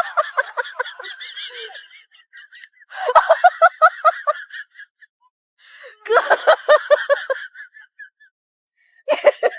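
Four bursts of laughter, each a quick run of 'ha-ha' pulses lasting about a second and a half.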